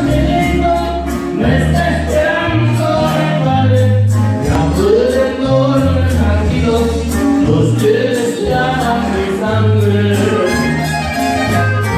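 A norteño band playing live, likely an instrumental intro: a bass line moving in held steps under a melody, with a steady beat.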